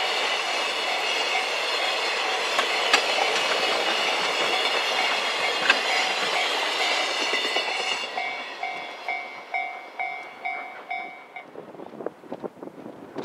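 Koki container flat wagons of a freight train rolling past, a steady loud rush of wheels on rail with clattering joints. The noise falls away about eight seconds in as the last wagon clears. A repeating ding, about two a second, follows and stops near the end.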